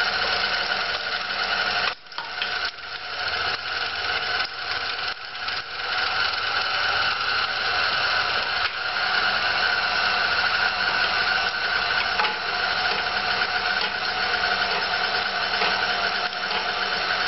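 Electric stand mixer with a meat grinder attachment running steadily, its motor whirring as it grinds raw rabbit meat, with a brief dip about two seconds in.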